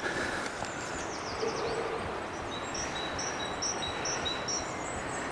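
A songbird singing a short, high two-note phrase about twice a second, starting about halfway through, with thin falling calls from another bird about a second in. Under it runs a steady even background noise.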